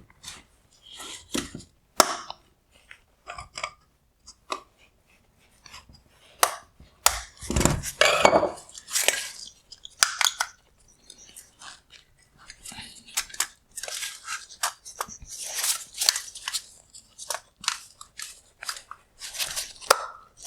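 Hard plastic headlight parts clicking, knocking and scraping in irregular bursts as they are handled and pried apart, such as a projector bezel being unclipped.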